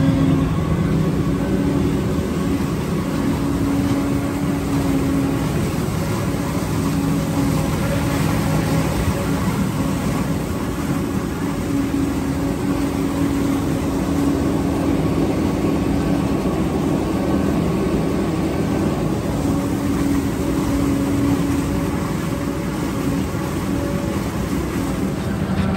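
Self-propelled forage harvester running steadily as it chops standing corn for silage: a steady engine drone with a few held low tones.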